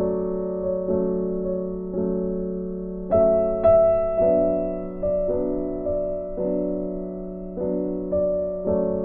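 Background music: a slow melody of struck notes, about one a second, each left to fade before the next.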